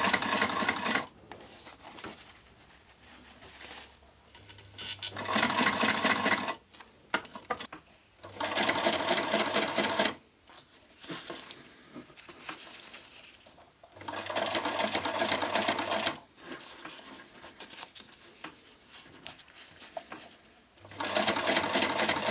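Electric sewing machine stitching through waxed canvas in short runs of a second or two, five times, with quieter pauses between while the fabric is repositioned to match a curved base to a straight edge.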